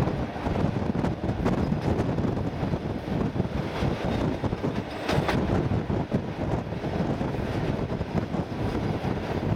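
ER9T electric multiple unit running at speed: a steady rumble of wheels on the rails, with wind buffeting the microphone and a few short sharp clicks.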